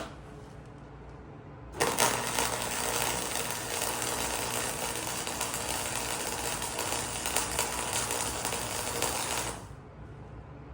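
Wire-feed welder arc crackling steadily as a bead is run. It starts about two seconds in and cuts off abruptly after about eight seconds.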